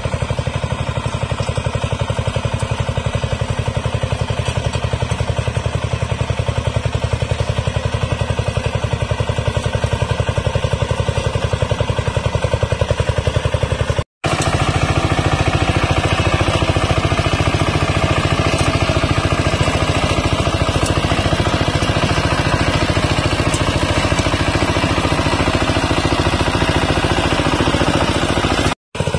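Kamco DI120 power tiller's single-cylinder diesel engine running steadily with a rapid, even firing beat while its rotary tines churn hard soil. The sound drops out for a split second about halfway through and again near the end.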